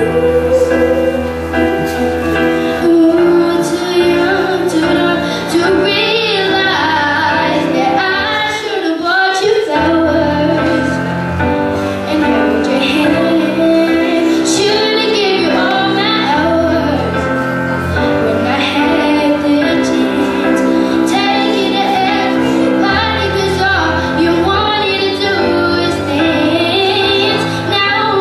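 A girl singing into a handheld microphone over instrumental backing music.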